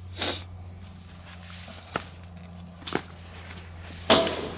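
Handling noise: a few short knocks and rustles as a garden hose fitted with outboard flushing earmuffs is moved around the outboard's lower unit. The loudest knock comes about four seconds in, over a steady low hum.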